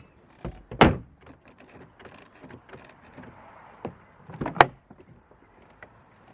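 A car door being worked with its newly repaired door handle: two loud clunks from the latch and door, about four seconds apart, with smaller clicks and rattles between them.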